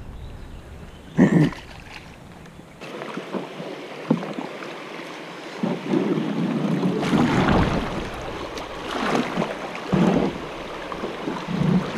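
Creek water rushing over shallow riffles and past the hull of a drifting plastic kayak, growing louder several times. A short thump comes about a second in.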